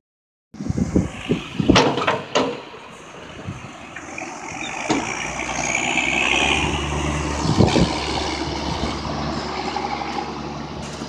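A farm tractor's diesel engine running steadily as it drives over a silage pile, growing louder towards the middle. There are a few sharp knocks in the first couple of seconds.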